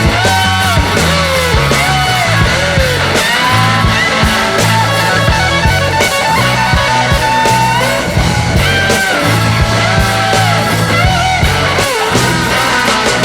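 Background rock music with a steady beat and guitar.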